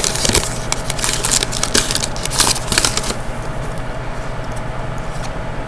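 Hockey trading cards being handled and sorted by hand, a quick run of light clicks and slides for about three seconds, then only a few sparse ticks.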